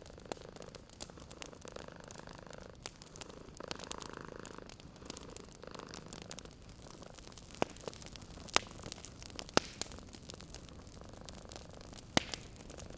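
A cat purring steadily over the crackle of a wood fire. Several sharp pops from the fire come in the second half.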